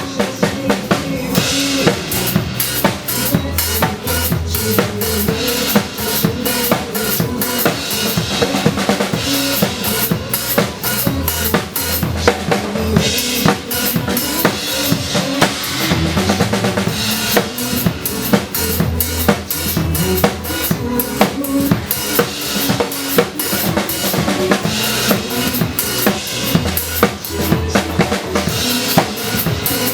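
Drum kit played along to a pop song's backing track in a passage without vocals, keeping a steady beat of evenly spaced hits throughout.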